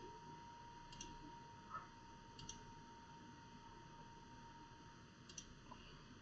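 Near silence with a few faint computer-mouse clicks a second or more apart, over a faint steady high tone that stops near the end.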